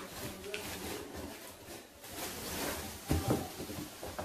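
Cardboard box being handled and its end flaps pulled open: scraping and rustling of cardboard, with a single knock a little after three seconds in.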